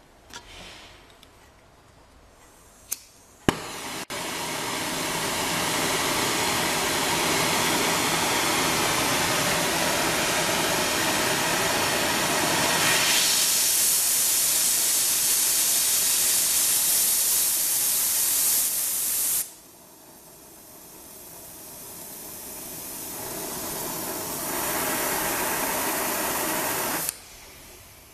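Oxy-acetylene brazing torch lit with two sharp clicks about three seconds in, the second setting off a loud, steady hissing flame. Past the middle the hiss drops abruptly, then builds back up and cuts off suddenly near the end as the flame is put out.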